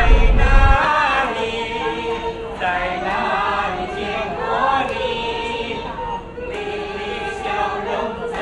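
A choir singing, several voices holding long notes together. A loud low rumble underneath cuts off under a second in.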